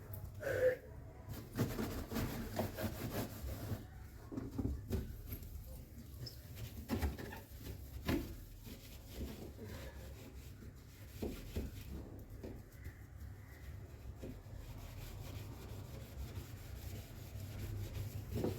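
Hand scrubbing and rubbing while a fridge is cleaned, with irregular knocks and light clatter as its parts are handled.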